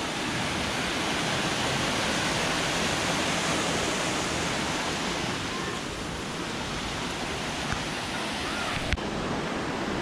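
Steady rush of creek water cascading over rocks into pools. A single sharp click sounds near the end.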